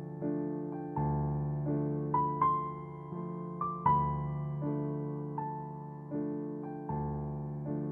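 Background music on piano: a gentle keyboard tune of chords and melody notes struck about once a second, each ringing and fading before the next.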